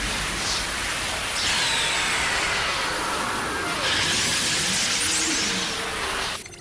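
Sound effects of a giant space beast rising out of smoke: a dense, loud rush of noise, with a screeching monster cry that falls in pitch from about a second and a half in and a higher cry around four seconds in.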